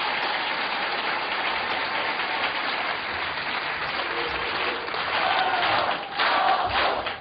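Audience applauding at length. About five seconds in, crowd voices begin to shout or chant over the clapping.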